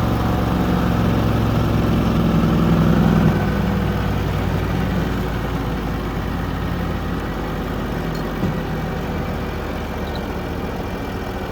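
MacKissic SC250 chipper/shredder running, its 16 hp Briggs & Stratton Vanguard V-twin engine driving the grinder. The note is steady, and about three seconds in it drops a little and settles to a slightly quieter, even run.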